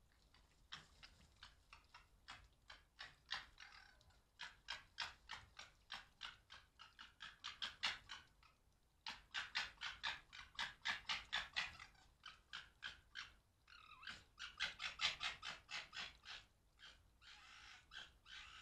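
Red foxes gekkering: a rapid, rattling chatter of about five pulses a second, in bouts of several seconds, turning into a steadier rasp near the end. It is the call foxes make when squabbling or play-fighting.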